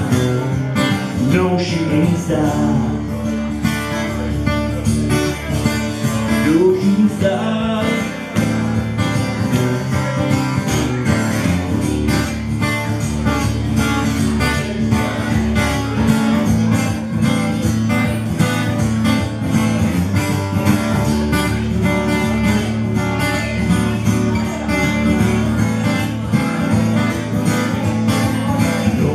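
Steel-string acoustic guitar strummed in a steady rhythm.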